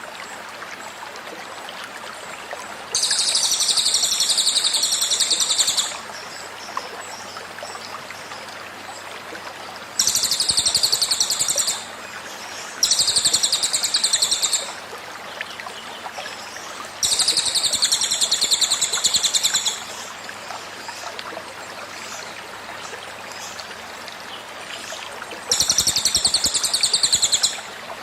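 A cililin bird's rapid, high-pitched trilling 'tembakan' song, five bursts of two to three seconds each, over the steady rush of a flowing stream.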